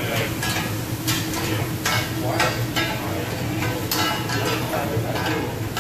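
Stir-fry sizzling on a large round Mongolian-grill griddle while cooks scrape and push it with long metal sticks: a steady frying hiss broken by repeated sharp metal scrapes and clacks, about one or two a second.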